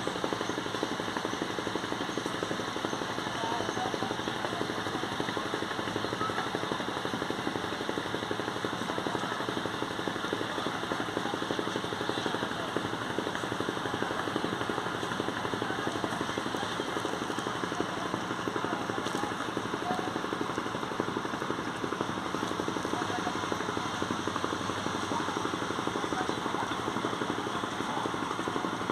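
A river passenger boat's diesel engine running steadily with an even, unbroken drone.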